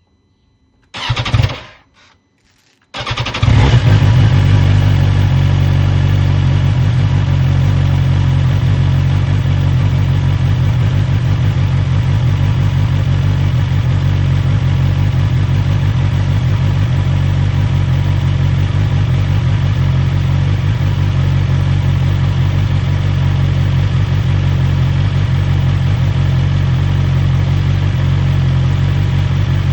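BMW S1000XR's inline-four engine on its stock exhaust being started: after a short burst about a second in, it fires up about three seconds in with a brief rise in revs and settles into a steady idle.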